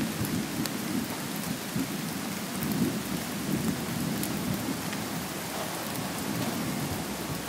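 Steady outdoor ambient noise: an even, rain-like hiss with an uneven low rumble beneath it and a few faint ticks.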